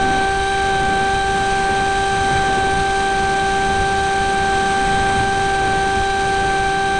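Electric motor and propeller of an RC flying wing running at a steady throttle, a constant high whine that holds one pitch, heard from a camera mounted on the plane with wind rushing over the microphone.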